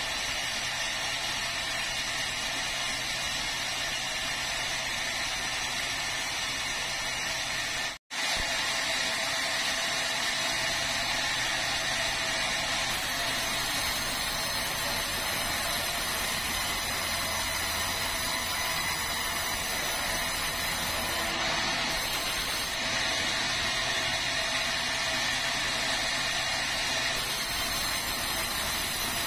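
Sawmill band saw running steadily while cutting through a large red meranti timber, a continuous mechanical whine and hiss. The sound cuts out completely for an instant about eight seconds in.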